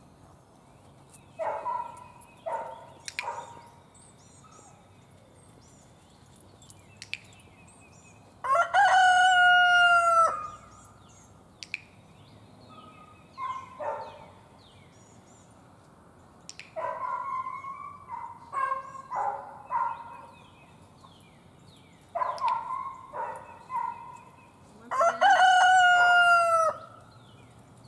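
Rooster crowing twice, two long loud crows of about two seconds each, the first about eight seconds in and the second near the end. Shorter chicken calls come in between.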